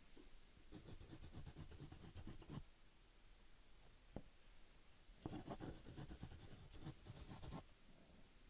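Faint scratching of a stylus drawing quick hatching strokes on a tablet, in two bursts of about two seconds each: one about a second in and one about five seconds in, with a single tick between them.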